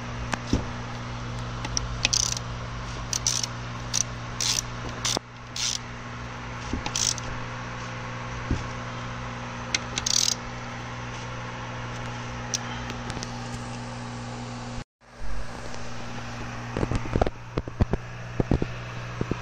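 Hand-tool work on a manual transmission casing: several short, hissing, scraping bursts over a steady low hum. Near the end comes a run of light metal clicks and knocks as parts are handled on the bench.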